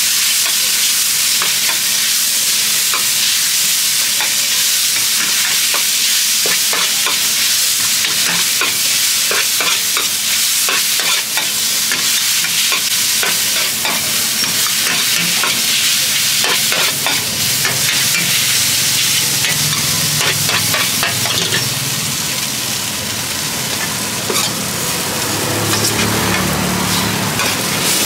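Rice noodles, bean sprouts and greens sizzling in oil in a large shallow wok while being stir-fried, with a metal spatula scraping and clacking against the pan many times.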